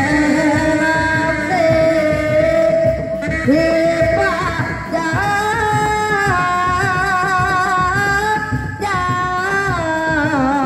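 Sundanese Reak ensemble music: dog-dog drums beating a fast, steady rhythm under a loud melody of long held notes that slide and waver between pitches.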